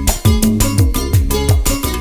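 Background music with a steady, danceable beat.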